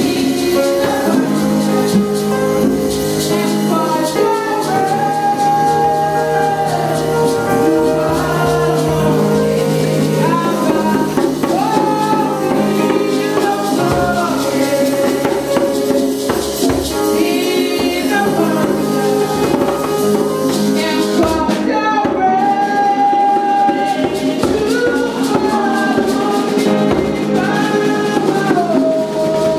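A woman singing a gospel song into a microphone, with backing singers and piano accompaniment.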